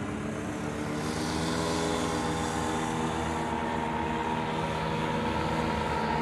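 Several powered paragliders' paramotors droning overhead: small propeller engines running together in a steady drone that dips slightly in pitch.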